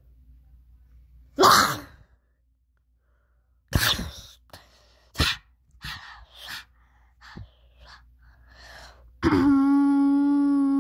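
A person's wordless vocal sounds: a loud breathy burst, a few short sharp breaths and mouth noises, then near the end a long moaning note held on one steady pitch.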